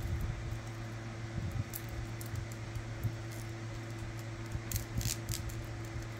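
Steady low electrical hum, with a few faint light clicks and clinks of costume jewelry being handled, a small cluster about five seconds in.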